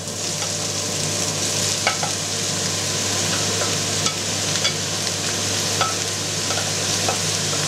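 Raw minced meat sizzling as it is tipped into a hot frying pan of fried onions, a steady hiss that swells as the meat goes in. Scattered light taps and scrapes come from the wooden spatula pushing the meat out of the bowl.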